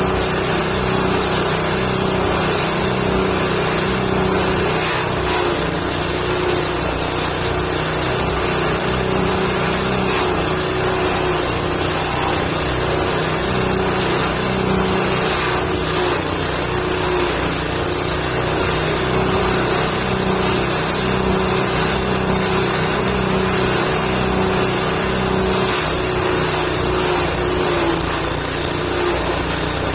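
Forage chopper machine running steadily while chopping indigofera and gamal branches into goat feed, its engine note dipping briefly in pitch now and then.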